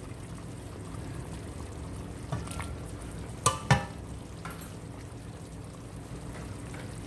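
Chicken wings sizzling and simmering in a pan of thickened, reduced soy-sauce adobo sauce, a steady low sizzle. Two sharp knocks come close together about three and a half seconds in.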